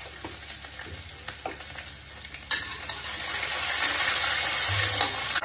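Whole spices and green chillies frying in hot oil in a kadhai, with a spatula stirring: light crackling at first, then about halfway through a sudden loud sizzle that keeps going.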